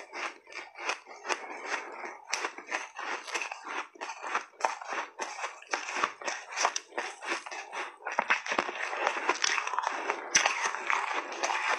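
Soft refrozen shaved ice crunching as it is bitten and chewed in big mouthfuls: a rapid run of crisp crunches that grows denser and louder about eight seconds in.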